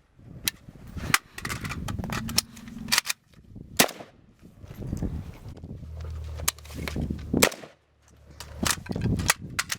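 Rifle gunfire: about eight single shots at an irregular pace, each with a short echo, over a low steady hum.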